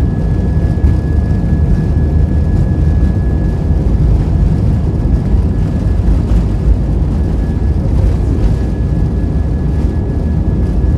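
Inside the cabin of an Airbus A320 rolling on the runway: a loud, steady low rumble of the jet engines and the wheels on the pavement, with a thin steady whine running through it.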